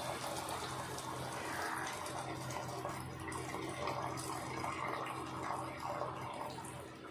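Cooking water being poured off pressure-cooked greens and lentils through a strainer: a steady pour of liquid that tapers off near the end.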